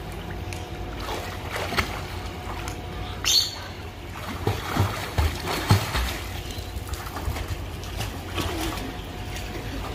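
Pool water splashing and lapping as children swim, over a steady low background noise. A few louder splashes come around the middle.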